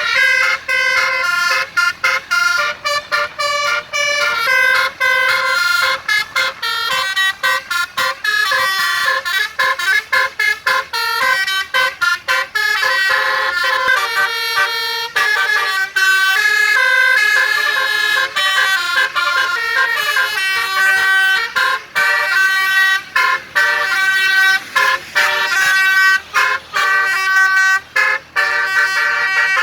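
Basuri telolet musical horn on a tour bus playing a melody of short and held notes, several horn tones sounding together. The notes change pitch quickly, with many brief breaks between bursts.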